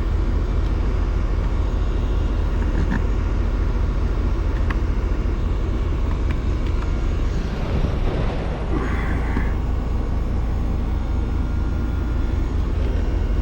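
Rheem Prestige outdoor air-conditioning unit running with a steady low drone from its compressor and condenser fan, with a few faint clicks and a brief rustle about eight seconds in.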